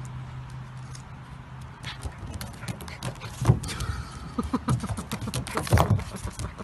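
Golden retriever puppy scrabbling about on a plastic slide: claws clicking and scraping on the plastic in quick irregular bursts, busiest in the second half, with a few short low grunts mixed in.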